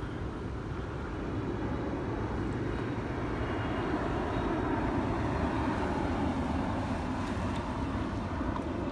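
Radio-controlled model airplane flying overhead, its engine droning steadily and growing louder over the first few seconds as it approaches.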